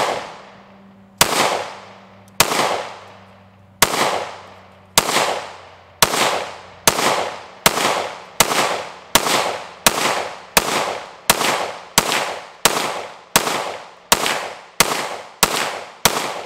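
PSA 5.7 Rock pistol in 5.7x28mm firing about twenty single shots in a steady string, each crack followed by a short echo off the range. The shots start about a second and a half apart and quicken to well under a second apart by the end.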